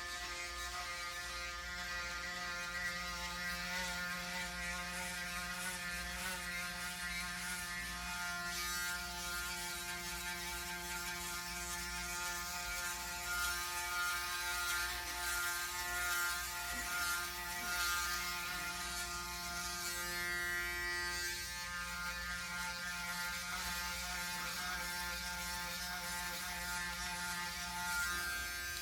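Braun Series 9 Pro 9465cc electric shaver running steadily while shaving a head. It gives a continuous motor hum with the buzz of the cutting head over stubble. The shaver has a newly replaced motor.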